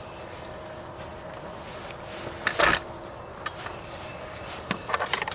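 A single short thump about two and a half seconds in, over a quiet steady background.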